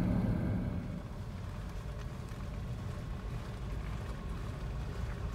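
Low, steady road and engine rumble inside a moving 1999 Toyota 4Runner. About a second in it gives way to a quieter, steady low rumble.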